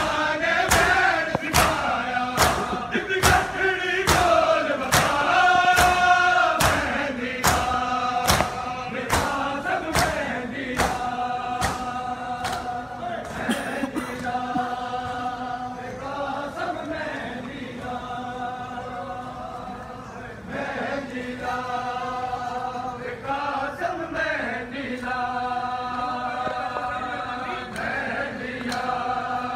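A crowd of men chanting a Muharram noha together. Their rhythmic slaps of chest-beating (matam) fall about once every 0.7 s through the first half, then fade.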